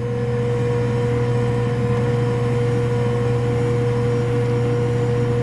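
Ankarsrum Assistent stand mixer running at its lowest speed, its motor giving a steady hum with a steady higher tone as the bowl turns flour and liquid against the roller at the start of a bread dough.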